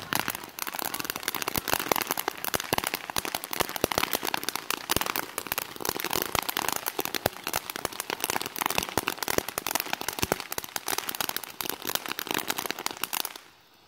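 Consumer ground fountain fireworks crackling, a dense rapid run of sharp pops that cuts off near the end.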